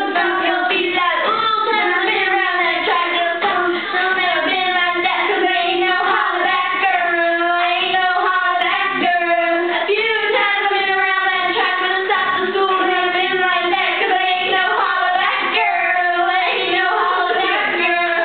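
Young girls singing a song together into handheld microphones, without a pause.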